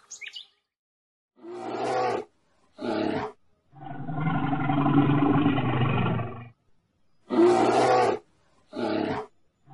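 Bear growling and roaring: two short growls, a long roar lasting nearly three seconds, then two more short growls.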